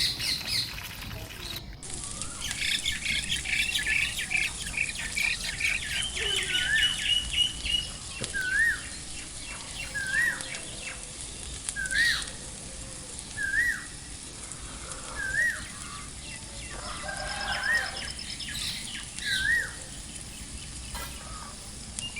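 Birds chirping: a quick run of high chirps, then one bird repeating a short rising call about every two seconds.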